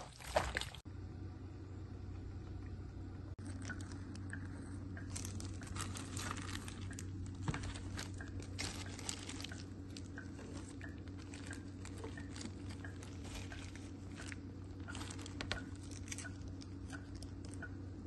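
Gloved hands squishing marinated chicken drumsticks in a wet tandoori marinade, loudest for the first second. Then soft scattered squelches and small clicks as the pieces are laid on sliced potatoes in a foil tray, over a steady low hum.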